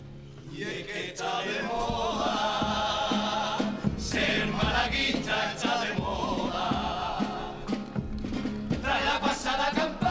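A chorus of men singing a carnival pasodoble together, with strummed Spanish guitars.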